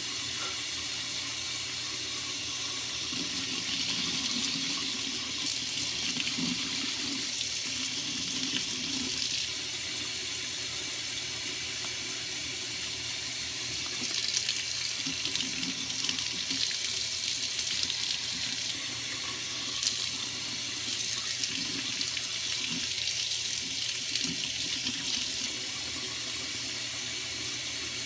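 Faucet running a steady stream of warm water into a sink, coming on abruptly at the start, as the small metal parts of a Kangertech Subtank Mini vape tank are rinsed clean under the stream, the water splashing over them.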